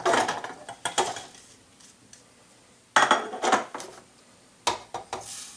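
Kitchenware being handled while a food processor bowl is loaded: garlic cloves and herbs dropped into the plastic bowl and glass prep bowls knocking and clinking on the counter. There are a few separate clatters: at the start, about a second in, about three seconds in, and near the end.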